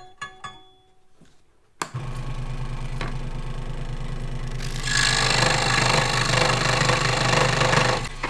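A tensioned scroll saw blade plucked a few times and ringing with clear notes. About two seconds in, the Central Machinery scroll saw switches on with a click and runs with a steady buzzing hum. From about five seconds it grows much louder and harsher as the blade cuts the 3/4 inch board, then stops just before the end.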